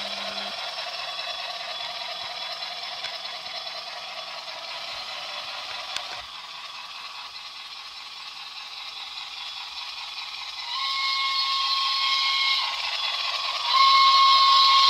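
An O gauge model steam locomotive with onboard sound, an MTH SNCF 141P, running with its train along the track with a steady rolling clatter that slowly fades. Near the end the locomotive's sound system sounds its whistle twice: a steady blast of about two seconds, then a second that is still going at the end.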